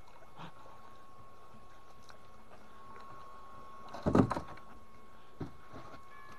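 A long-handled hand net is brought to a plastic box of caught fish. A short clatter of knocks and thumps comes about four seconds in, and a single smaller knock follows a second later.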